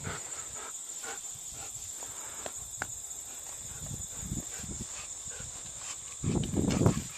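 Golden retriever moving about on grass with a stick: soft paw steps and scuffs, with a louder burst of low rustling and bumping near the end.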